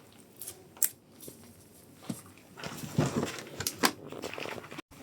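Handling noise as parts of a small engine tool are fitted back in place: a few sharp clicks and a stretch of irregular clattering and rustling.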